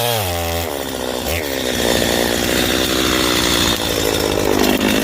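Gas chainsaw running: its engine note drops in pitch near the start, then it runs rough and steady under load as it cuts through wood.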